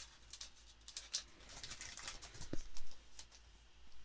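Foil trading-card pack wrapper crinkling and rustling in the hands as the stack of cards is slid out of it, with a brief low knock about halfway through.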